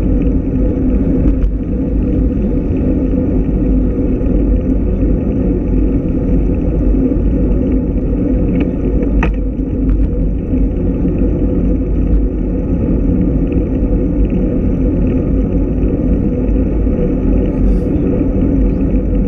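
Steady wind buffeting and road rumble on the microphone of a camera riding on a moving road bike, with a few light clicks about a third and half of the way in.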